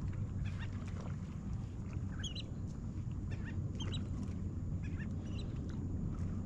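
Birds calling in short, irregular chirps, several a second, over a steady low rumble of wind noise.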